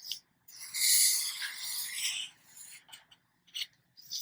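Black marker scratching across paper while drawing wavy lines: one long stroke of about a second and a half, then a few short strokes.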